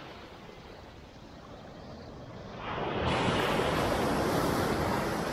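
Small surf breaking and washing up onto a sandy beach, a steady rush of water that swells suddenly into a loud wash about two and a half seconds in.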